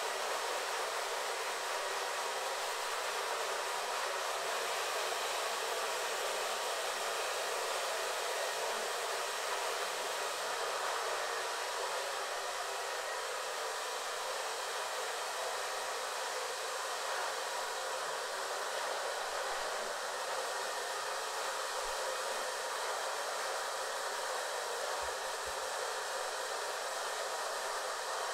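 Handheld hair dryer running steadily, an even rush of blown air that neither stops nor changes speed.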